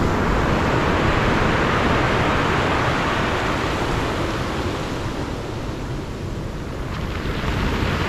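Sea waves breaking and washing onto the beach, swelling over the first few seconds, easing, then building again near the end, with wind rumbling on the microphone.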